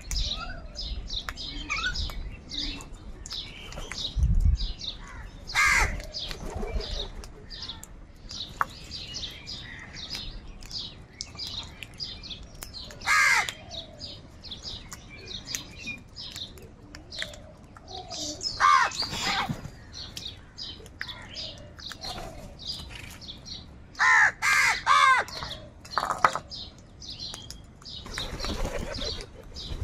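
A flock of crows cawing: loud, harsh caws in clusters every few seconds, including a rapid run of several caws about 24 seconds in, over a constant patter of quick, high chirps. A low dull thump sounds about four seconds in.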